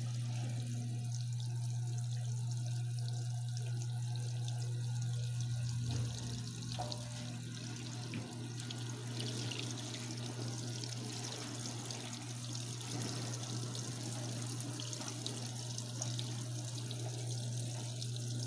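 Water pouring steadily into a top-loading washer's tub as it fills, a hissing rush, with a steady low hum throughout.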